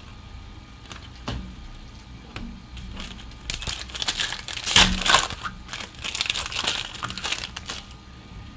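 Panini foil trading-card pack torn open and crinkled, a dense run of crackling from about three and a half seconds in that fades near the end. Before that, a few soft clicks of trading cards being flipped in the hands.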